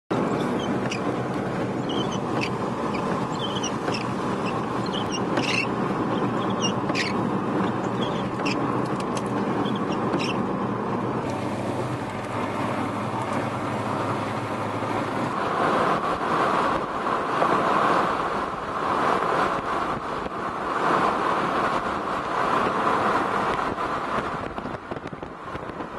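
Wind rushing over the microphone over the steady hum of a vehicle, the wind gusting harder and more unevenly from a little past halfway. A few faint high chirps and clicks come through in the first ten seconds.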